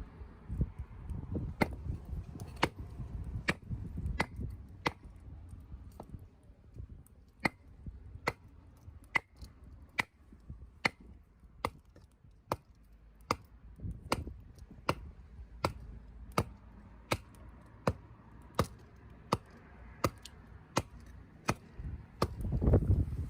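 Sharp clicks or taps repeating at a fairly even pace, a bit more than one a second, over a low rumble that grows louder near the end.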